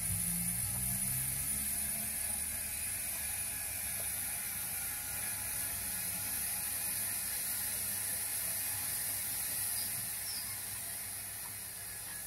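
Motorised 0 gauge model railway turntable running steadily as it turns a locomotive, the sound of its geared drive mechanism.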